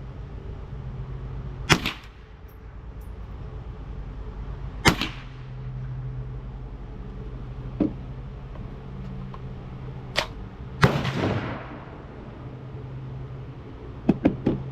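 Gunshots fired one at a time every few seconds, about eight in all. A louder shot with a long echoing tail comes near the middle, and three quick shots come near the end. A steady low hum runs underneath.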